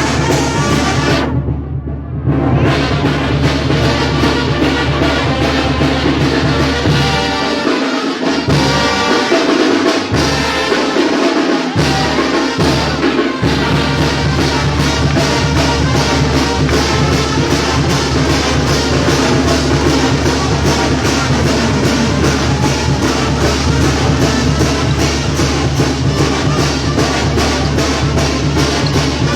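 Brass band music with trumpets and trombones over a steady drumbeat. About a third of the way through, the bass and drums drop out for a few seconds, then the full band comes back in.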